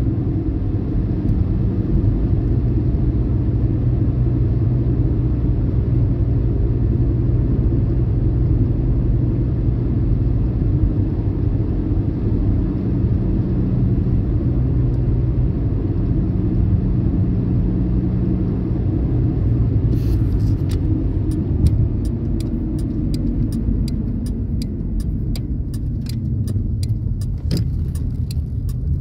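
Car engine and road noise heard from inside the cabin, a steady low rumble. In the last third it quietens, and a run of sharp clicks begins.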